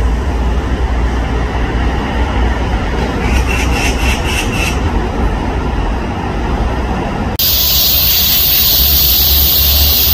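Outdoor background noise: a steady low rumble, with a short run of pulsing chirps about three to five seconds in. About seven seconds in, the sound changes abruptly and a loud steady high hiss comes in.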